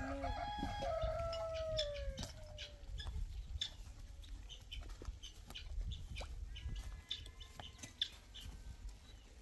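Animal calls: one long call falling in pitch over the first two seconds, then a scatter of short, sharp notes. A steady low rumble runs underneath.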